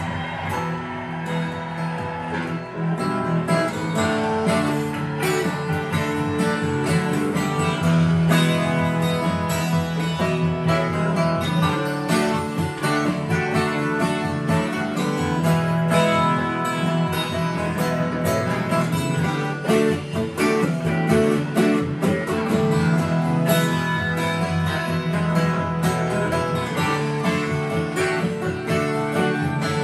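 Steel-string acoustic guitar being strummed and picked, playing a continuous instrumental passage with a steady rhythm.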